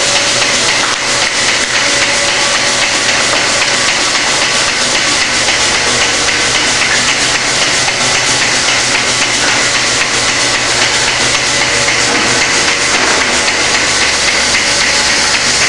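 Milking-parlour machinery running: a steady loud hiss from the vacuum milking system with a regular clicking from the milking units' pulsators.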